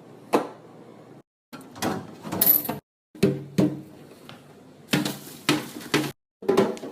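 Knocks and clatter of containers and plastic refrigerator parts being handled and taken out of a fridge, in short bursts that cut off abruptly several times.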